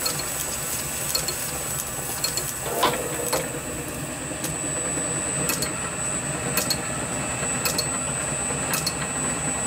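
Small metal lathe running steadily, spinning a brass flywheel in its chuck, with light ticks recurring about once a second in the second half.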